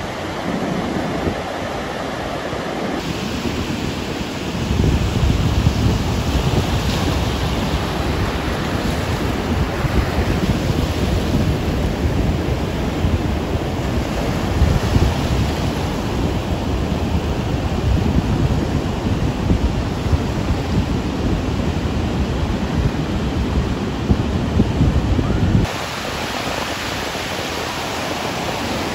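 Steady ocean surf washing below a bluff, mixed with wind buffeting the microphone; the wind gets heavier about four to five seconds in and drops away abruptly a few seconds before the end.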